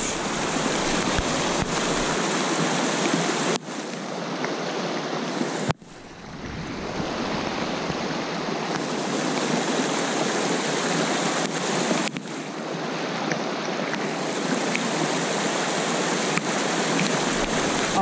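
Mountain creek running hard over rocks and small cascades: a steady rush of water that dips briefly three times, most deeply about six seconds in.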